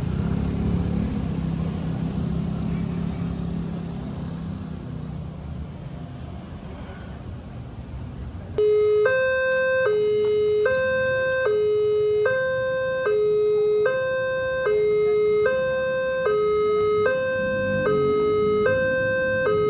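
Low traffic rumble, then about eight and a half seconds in a railway level-crossing alarm starts suddenly. It is an electronic two-tone signal that alternates high and low about every 0.8 s and warns that a train is approaching and the gate barriers are closing.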